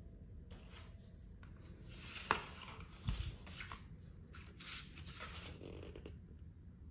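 Large sheets of printed photo paper being leafed through and slid over one another: faint rustling and sliding, with a sharp tap a little over two seconds in and a soft low thump about a second later.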